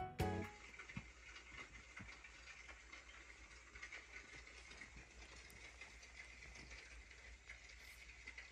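Background music cuts off about half a second in, leaving faint steady room noise with a low hum and a few tiny clicks.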